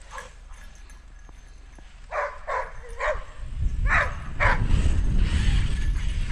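A dog barks five times, three quick barks about two seconds in and two more about a second later. Under the barking, a low rumbling noise builds from about halfway through and keeps going.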